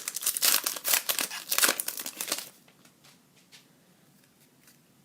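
Hockey card pack wrapper being torn open and crinkled for about two and a half seconds. It goes almost quiet after that, with a few faint ticks.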